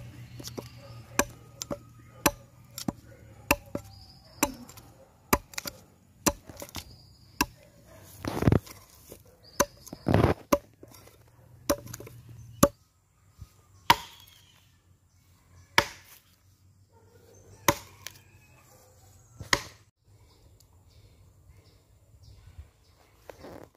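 Short-handled adze chopping into the wood of a log being hollowed into a mortar. Sharp strikes come about two a second, then two longer, rougher strokes, then slower strikes about two seconds apart.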